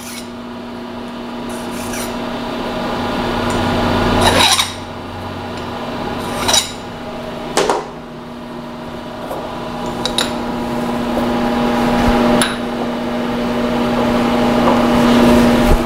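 Burr being taken off the edge of a freshly milled copper vise jaw: metal scraping and rasping in long swelling passes, with a few sharp clicks, over a steady machine hum.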